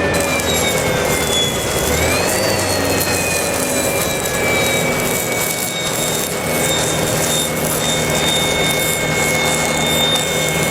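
Machine running with a high whine over a loud hiss; the whine rises about two seconds in, then slowly settles and holds steady.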